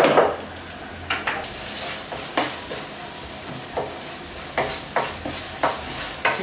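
Sliced onions sizzling in oil in a nonstick wok, stirred with a wooden spatula that scrapes and knocks against the pan at irregular intervals, about nine strokes in all. The sizzling turns louder and brighter about a second and a half in.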